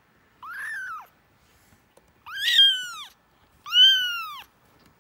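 A kitten meowing three times, high-pitched, each meow rising and then falling in pitch; the second and third meows are louder than the first.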